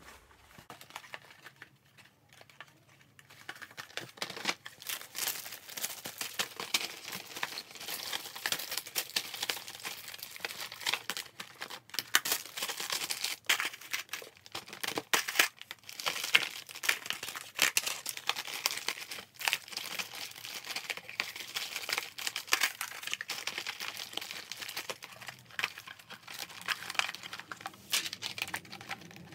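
School-supply packaging crinkling and rustling under hands, with many small clicks and knocks as items are handled and set down; it starts about three seconds in.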